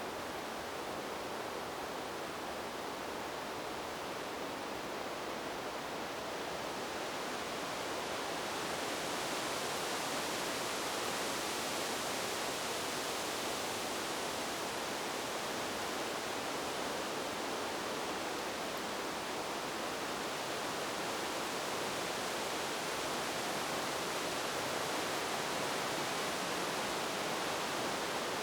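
Wind blowing through forest trees: a steady rushing that swells and brightens about eight seconds in and stays up.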